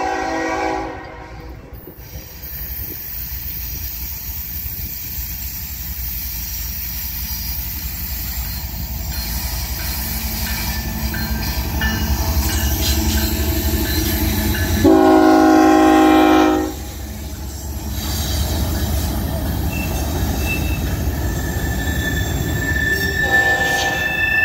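CSX ES44AH diesel-electric locomotive approaching and passing while sounding its horn: a short blast at the start, a long loud blast about fifteen seconds in, and a short blast near the end. Its engine rumble builds as it nears. Freight cars then roll by with a thin wheel squeal in the last few seconds.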